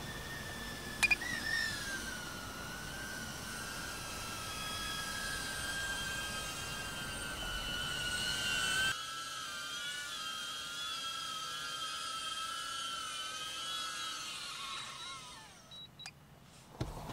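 DJI Avata's motors and stock five-blade propellers whining, the pitch wavering with throttle and a click about a second in. Near the end the whine falls in pitch and fades as the motors wind down.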